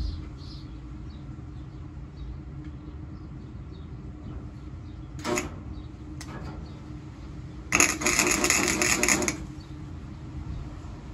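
Welding arc crackling as tack welds are laid on a car's steel quarter panel: two brief tacks about five and six seconds in, then a longer crackling weld of about a second and a half near eight seconds.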